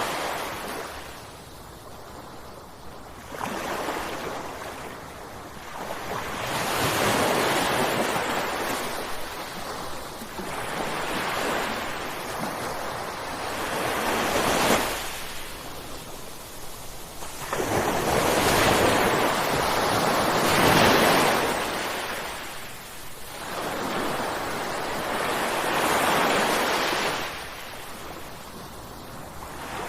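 Ocean waves crashing. The surf swells and falls back every few seconds, and the biggest wave breaks about two-thirds of the way in.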